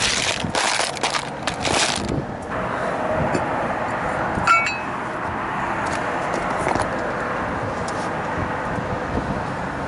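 Gloved hands working on a refrigeration condensing unit: rustling and knocks for the first two seconds, then a single sharp metallic clink with a short ring about four and a half seconds in, over steady background noise.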